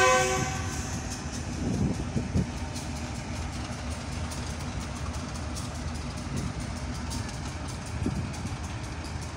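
The tail of a GEU-40 diesel-electric locomotive's horn blast cutting off at the very start, then the steady low rumble of its diesel engine running, with a few faint knocks.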